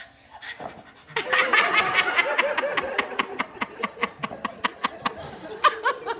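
A woman's dog-like panting moan, then about a second in, loud audience laughter with rapid clapping.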